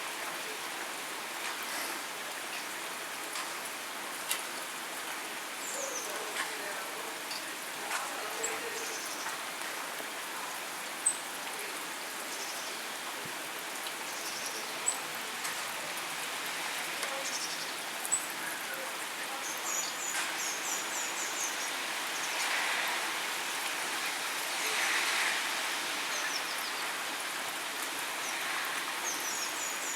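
Heavy rainfall pouring steadily, with a few loud single drips tapping now and then. A bird gives short high chirps twice in the second half.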